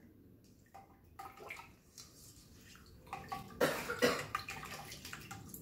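Small spoon stirring a shallow pool of warm water, honey and yeast in a stainless steel mixer bowl: faint scrapes and light clinks against the metal, then a louder swishing burst about three and a half seconds in.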